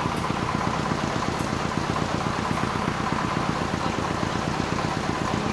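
An engine running steadily at idle, a fast even low pulsing with a faint steady tone above it.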